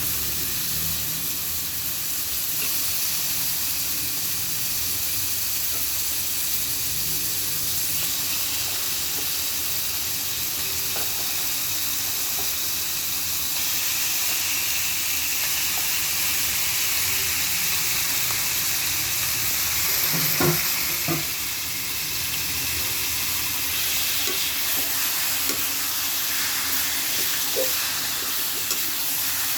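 Chicken liver sizzling as it fries in oil with onions in a pan, a steady hiss as it is stirred. A couple of sharp knocks sound about twenty seconds in.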